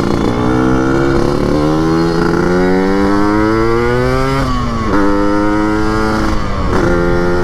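Yamaha RX-King two-stroke single-cylinder engine with an under-belly chrome expansion-chamber exhaust and open air filter, set up for the raspy 'ngorok' tone, pulling hard under way. Its pitch climbs steadily, drops sharply about four and a half seconds in, then holds steady with brief dips near the end.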